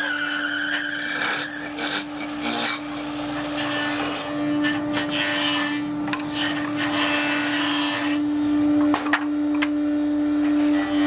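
A workshop machine hums steadily while a piece of wood is scraped and rasped against it in uneven passes, with a sharp click about nine seconds in.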